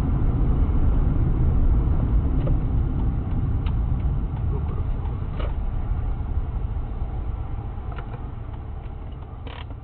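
Low, steady rumble of a car's engine and road noise heard from inside the cabin, slowly growing quieter, with a few faint clicks.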